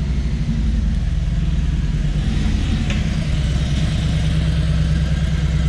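2018 Harley-Davidson Road Glide's Milwaukee-Eight V-twin engine running steadily at low revs, cutting off abruptly at the end.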